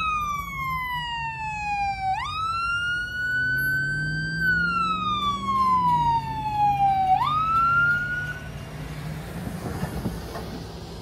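Fire truck siren wailing in slow sweeps, each falling for about two and a half seconds before snapping back up, over the sound of vehicle engines. The siren cuts off about three-quarters of the way through, leaving the noise of vehicles passing close.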